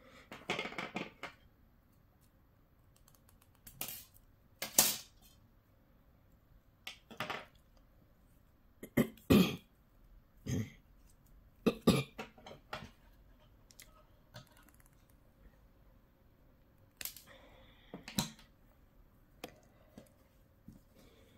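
Handling noise from working a thin wire into a crocheted doll on a tabletop: a dozen or so sharp clicks and taps at irregular intervals, with brief rustles.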